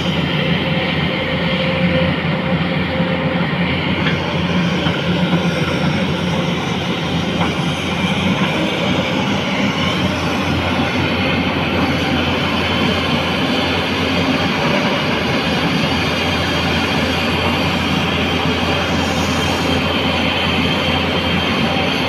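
Diesel engine of a Tata Hitachi EX210LC crawler excavator running steadily under load as the machine tracks forward through deep mud.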